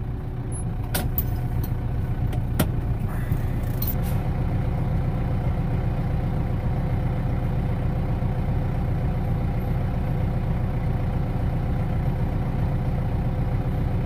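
Farm tractor's diesel engine running steadily, with a few sharp clicks in the first few seconds.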